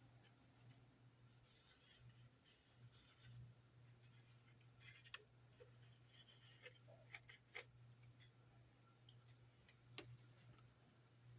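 Near silence: faint handling noises of small polystyrene parts and glue, with light rubbing and a few small clicks, over a low steady hum.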